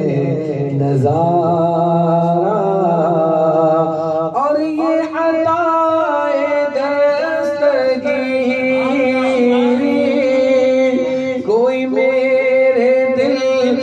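Male voices chanting a naat, a devotional song in praise of the Prophet, in long gliding phrases; a new phrase starts about four seconds in.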